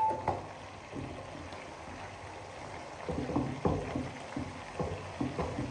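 Chicken pieces frying in oil in a karahi with a faint steady sizzle while they are turned over. A short metallic clink comes at the very start, and from about three seconds in there are irregular knocks and scrapes of the utensil against the pan.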